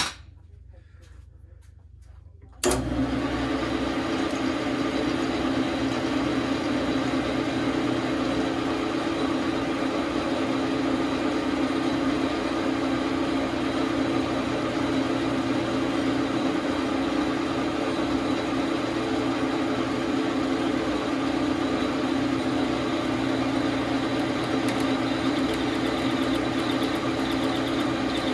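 Dar Sin 12 x 37 manual metal lathe switched on about three seconds in, its motor and gearing then running at a steady speed with an even, unchanging hum and whir.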